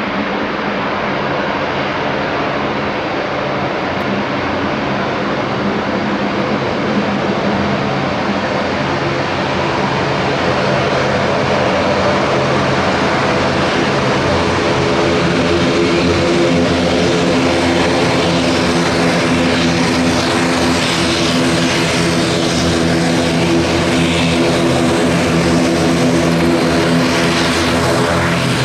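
ATR 72 turboprop airliner's engines and propellers running, a steady drone with a stack of propeller tones that grows gradually louder.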